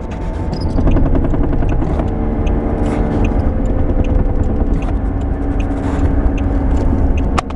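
A 2006 Pontiac G6 braking while driving, heard from inside the cabin: steady road and engine noise with a fast rattle of small ticks, as the front end vibrates on severely warped front brake rotors. A single sharp click comes near the end.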